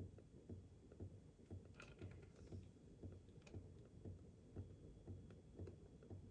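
Faint, regular low knocks about twice a second, each with a light click.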